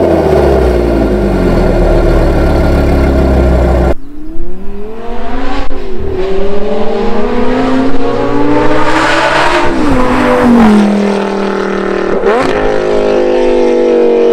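Lamborghini Gallardo's naturally aspirated V10 through IPE headers, decat pipes and a Capristo back box: it falls from a rev to a steady idle, then about four seconds in the car accelerates hard past, the note climbing and dropping sharply at each gearshift.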